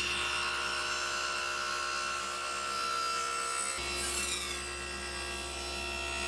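Table saw running with a steady whine while its blade cuts a bevel along a maple-and-walnut workpiece clamped in a sliding jig.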